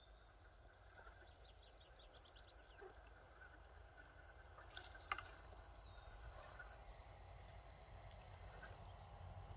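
Near silence: faint outdoor ambience with a low rumble and a few faint bird chirps, and one sharp click about five seconds in.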